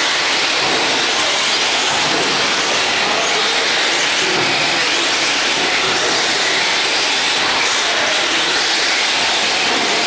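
Radio-controlled cars racing on an indoor dirt track: a steady, loud rushing whir of motors and tyres with no single engine note standing out.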